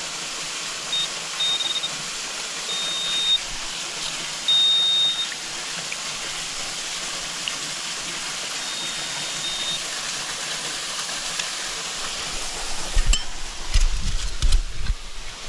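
Metal detector giving short, high-pitched beeps, five of them in the first ten seconds, over a steady rush of flowing creek water. Near the end come knocks and clicks of digging among rocks.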